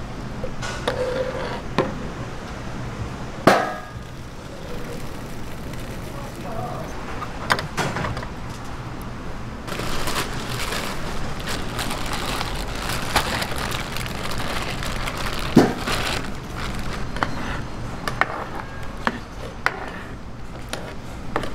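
Food-stall kitchen sounds: metal ladle and tongs clinking and clanking against steel pans and trays. There are two sharp clanks, one a few seconds in and one about two-thirds of the way through, over background voices and a steady low hum.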